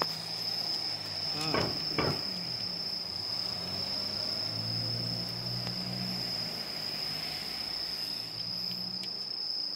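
Crickets giving one continuous, steady high-pitched trill, over a low steady hum.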